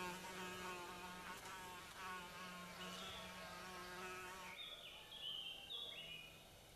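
A fly buzzing close by, its drone wavering slightly in pitch, until it breaks off about four and a half seconds in. A few short high chirps follow near the end.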